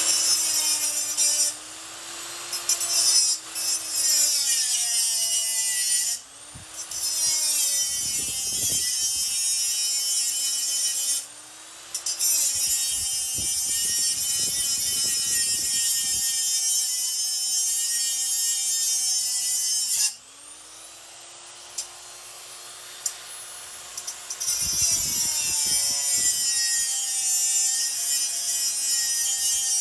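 Small high-speed rotary tool grinding away stray silver solder on a small steel part: a steady whine with a gritty hiss, switched off and spun back up several times, the pitch sagging as it bites.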